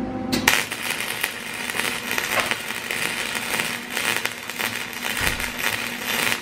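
MIG (wire-feed) welder arc crackling and sizzling as it lays a bead joining two doubled-up metal brackets, starting about half a second in. A steady low hum runs underneath.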